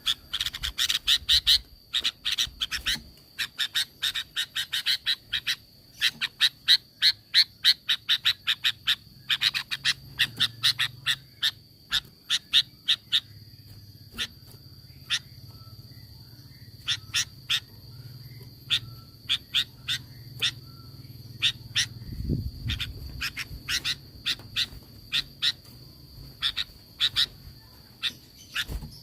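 Sooty-headed bulbul (kutilang) giving rapid runs of short, sharp chip notes, about four a second, in several bursts with short pauses; the notes grow sparser in the second half. This is the fast 'tembakan' call series used to provoke other bulbuls to answer.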